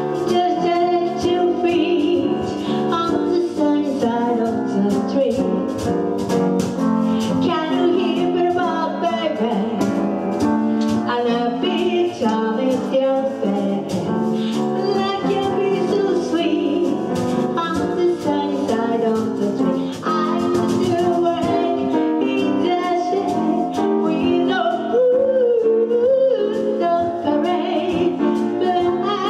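Grand piano and cajón playing a swing jazz tune live, the cajón's strokes keeping the beat under the piano's chords.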